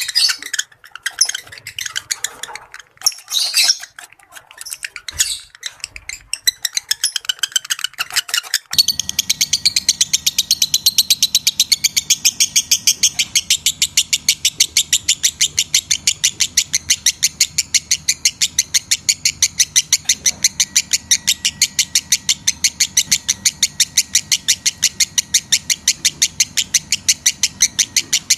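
Lovebird calls: a few seconds of irregular high chirps and squawks, then, about nine seconds in, a rapid, evenly spaced chattering trill of about seven notes a second that runs on without a break.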